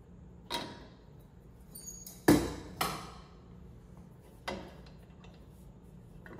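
A few sharp clinks and knocks of metal lantern parts being handled and set down, four in all, the loudest about two seconds in, with a brief high metallic ring just before it.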